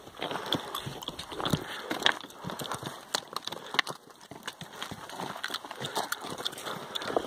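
Pack donkeys' hooves clopping irregularly on loose limestone rubble as they walk down a stony track, with knocks and scrapes of shifting stones.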